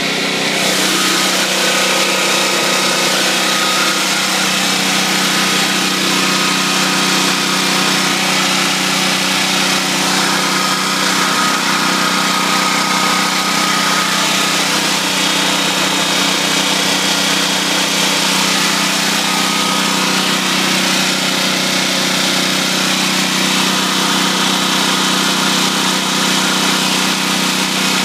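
Generac XG8000E portable generator's single-cylinder engine running steadily at constant speed, an even drone that does not change.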